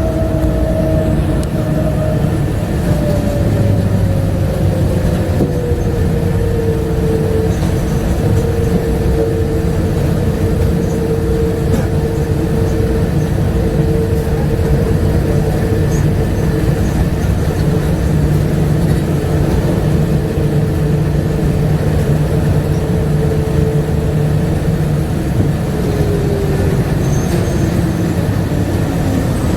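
Bombardier APM100 rubber-tyred people mover running, heard from inside the car: a steady rumble with an electric motor whine. The whine falls in pitch over the first several seconds, holds steady, then falls again near the end as the train slows.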